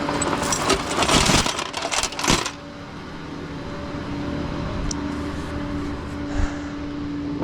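Loud metallic clattering and clinking for about two and a half seconds, then a steady engine hum.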